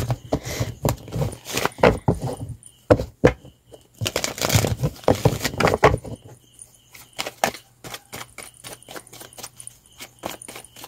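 A deck of tarot cards shuffled by hand: rustling bursts of cards sliding and slapping together, then a quicker run of light card clicks in the second half.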